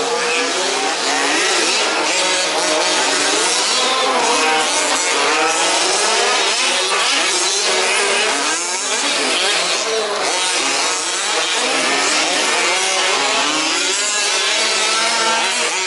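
Several 1/5-scale petrol RC off-road cars' small two-stroke engines racing, their pitches rising and falling over one another as the cars accelerate and back off.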